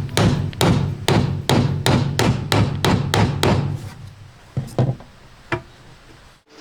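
Hammer blows on wood in a quick, even run of about three strikes a second, which stops about four seconds in. Two more blows follow, then a last single one.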